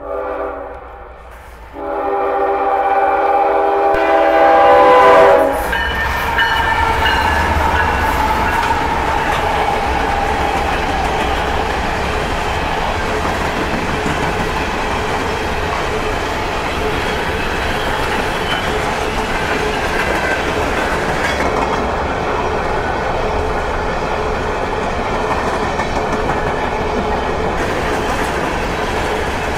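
Locomotive's Nathan K5HL air horn blowing a short blast and then a longer one that ends about five seconds in. Then the empty coal train rolls by, its hopper cars rumbling with clickety-clack over the rail joints. A steady high whine comes in for several seconds near the end.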